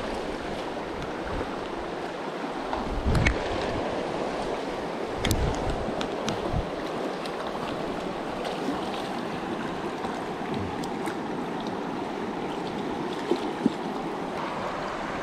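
Steady rush of a fast-flowing river running high, with a few dull knocks, the loudest about three seconds in and another about five seconds in.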